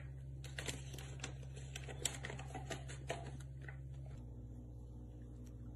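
A quick, irregular run of light taps and clicks as a sheet of paper is pressed and slid against ceramic wall tiles, over a steady low hum. The taps stop about four seconds in.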